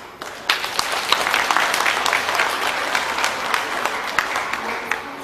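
Audience applauding, a dense round of clapping that begins just after the start and fades out near the end.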